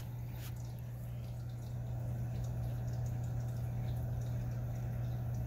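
A steady low hum over a faint hiss, with a few soft ticks.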